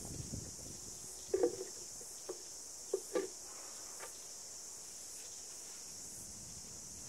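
A few short taps and knocks as a paintbrush is dipped in a paint pot and worked against its rim, over a steady high hiss. The taps cluster in the first half, with two close together about three seconds in.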